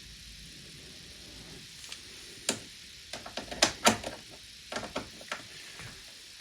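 Irregular small sharp clicks and taps of a star-head (Torx) screwdriver working the screws out of a monitor's metal frame. The clicks start about two and a half seconds in and are scattered over the following few seconds.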